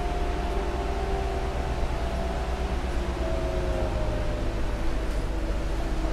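Heuliez GX 317 GNV natural-gas city bus's engine and drivetrain running, with a steady low rumble and a whine that slowly falls in pitch.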